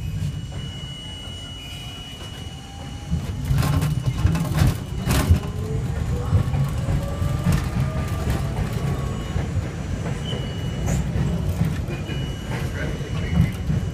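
R42 subway train running on an elevated structure, heard from inside the lead car: a steady rumble with wheels knocking over rail joints, and a traction-motor whine rising in pitch from a few seconds in as the train accelerates.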